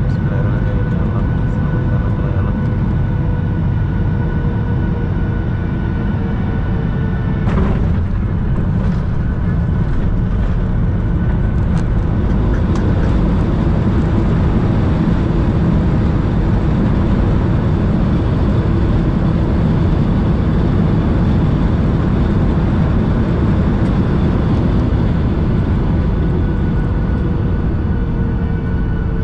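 Jet airliner engines and airflow heard from inside the passenger cabin during the approach to land: a steady loud rumble with a faint engine whine that slowly falls in pitch. A single sharp knock about seven and a half seconds in.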